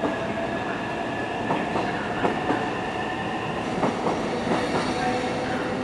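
Freight train of Taki tank wagons rolling slowly on steel rails, wheels clacking irregularly over rail joints, with a thin steady squeal from the wheels.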